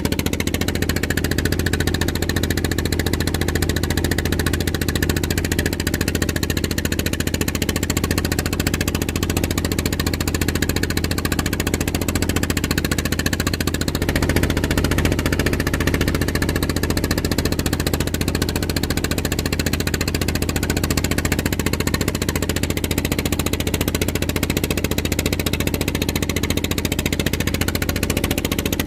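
Boat engine running steadily at a constant speed, with a fast, even pulse. Its note shifts slightly about halfway through.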